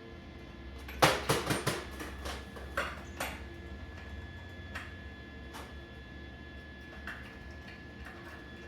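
Sharp metal-on-metal clinks and knocks from scrap steel pieces being handled or struck: a quick run of about five strikes about a second in, a few more over the next two seconds, then scattered lighter taps. A steady low hum runs underneath.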